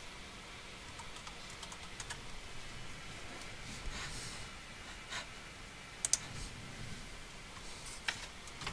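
Slow, scattered keystrokes on a computer keyboard as a short name is typed, with a sharper pair of clicks about six seconds in.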